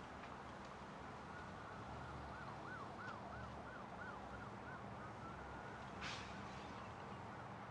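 Faint emergency-vehicle siren that wails and then switches to a fast yelp for a few seconds, over a steady low rumble of highway traffic. A short hiss about six seconds in.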